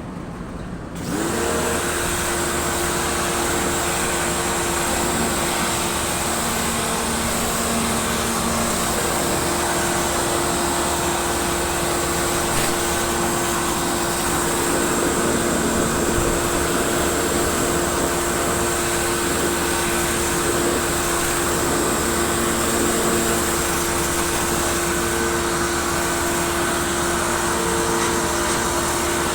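Portable electric pressure washer starting up about a second in, its motor and pump then running steadily with the hiss of the water jet as it cleans a dirty air-conditioner condenser coil.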